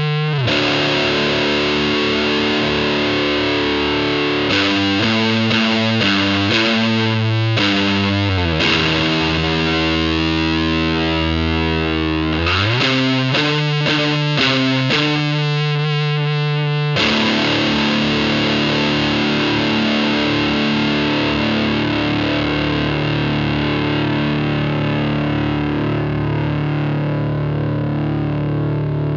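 Electric guitar played through a Palomar Sound Cholla op amp fuzz pedal at maximum gain: thick, fuzzy sustained chords, with a slow pitch dip that bends back up partway through, then one chord left to ring out with long sustain.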